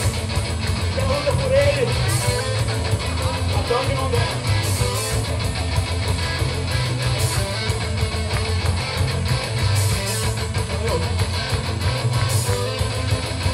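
Live rock band playing a heavy song: distorted electric guitars, bass and drums, with a cymbal crash about every two and a half seconds. The singer's voice comes through briefly in the first few seconds.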